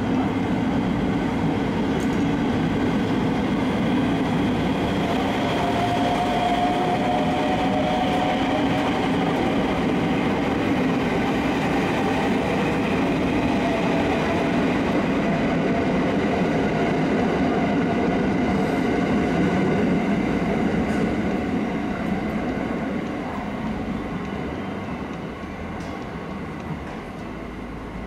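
The Sunrise Seto, a 285-series electric sleeper train, pulling out of the platform: a steady rumble of wheels and motors that fades away over the last few seconds as the train leaves.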